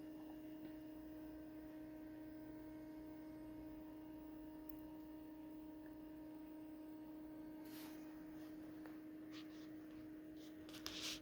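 A faint, steady background hum, with a few light clicks and a short rustle near the end.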